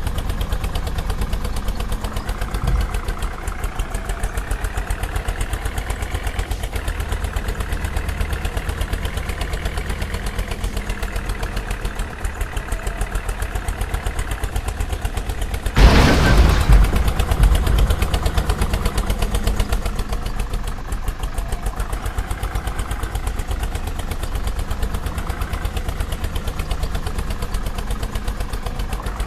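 Vehicle engine running with an even, rapid thudding beat, its pitch rising slightly a few seconds in. About sixteen seconds in, a sudden louder burst of noise lasts a couple of seconds before the steady running resumes.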